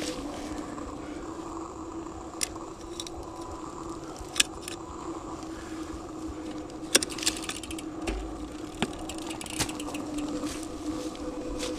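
Mountain bike rattling and clicking over rough trail ground, with several sharp metallic clicks over a steady hum.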